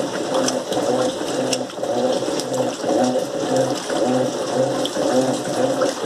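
Electrolux Turbo Limpeza 8 kg top-loading washing machine agitating a load of clothes in water: a motor hum that pulses about twice a second with each swing of the agitator, with water sloshing and splashing in the tub.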